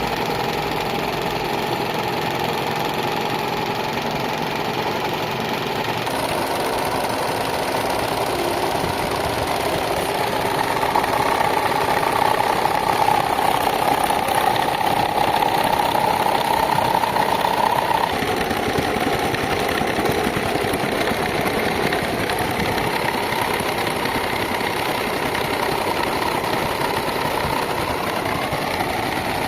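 Electric fan with a broken blade running at high speed: a steady motor whine over the rush of air. The whine grows louder and edges up in pitch through the middle, then drops back suddenly.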